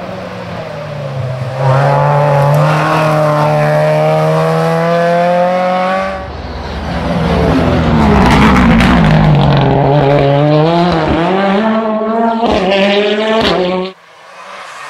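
Rally cars passing at full throttle on a tarmac stage. One engine winds up in a long rising pull. A second car then slows, and climbs again through several quick upshifts as it passes close. The sound cuts off suddenly near the end.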